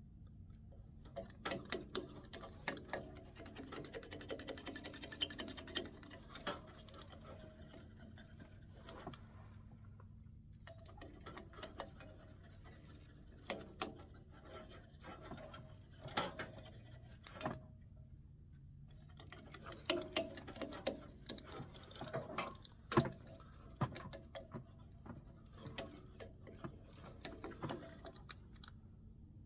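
Melted wax being scrubbed into a walnut wand by hand: scratchy rubbing with many small clicks and taps in three long stretches, broken by short pauses.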